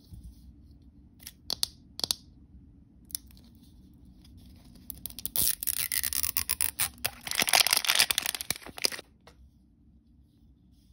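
Plastic wrapper of an L.O.L. Surprise ball being handled and then peeled open along its seam. A few short crinkles come about a second and two seconds in, then about four seconds of dense crackling tearing that stops suddenly.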